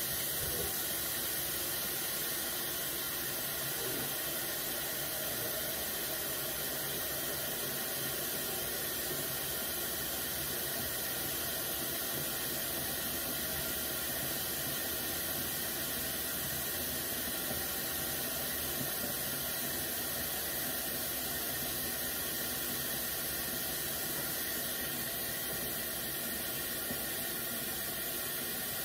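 Kitchen faucet running a steady stream into a stainless steel pot in the sink, filling it with water.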